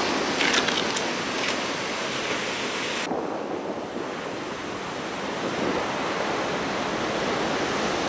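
Steady rushing outdoor ambience with no single clear source. A brighter hiss with a few faint crackles in the first three seconds drops away abruptly, leaving a duller steady rush.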